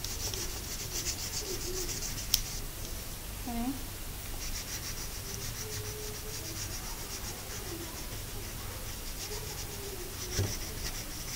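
Wax crayon rubbed quickly back and forth on paper, a rhythmic scratchy rasp of rapid strokes that breaks off briefly a few seconds in. A sharp click about two seconds in and a soft knock near the end.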